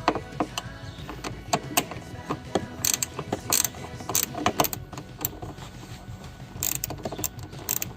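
Hand ratchet wrench with a 13 mm socket clicking in quick, irregular runs while a hard-top bolt is worked loose.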